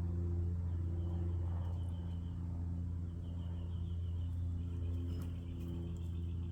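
Steady low hum of an idling engine, with a bird's high, rapid trill repeating three times over it.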